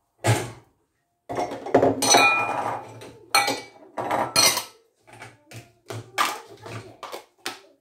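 Dishes knocking and clinking as bowls and plastic cups are lifted out of a dishwasher rack and set down on the kitchen counter: an uneven run of sharp knocks, busiest about two seconds in.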